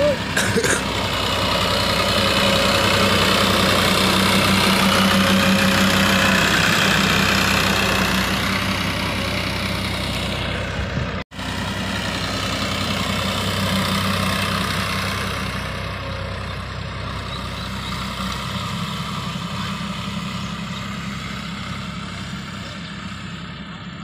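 TAFE tractor's diesel engine running steadily while pulling a leveler across a ploughed field, loudest as it passes close by and fading gradually as it drives away in the second half.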